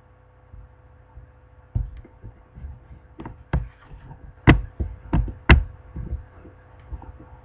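A series of about eight uneven knocks and thumps, the loudest three close together near the middle, over a steady low hum.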